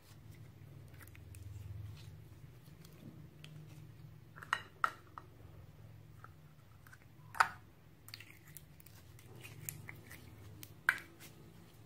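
Slime being stretched, squeezed and pressed by hand, making soft sticky crackles over a low steady hum, with four sharp clicks spread through it.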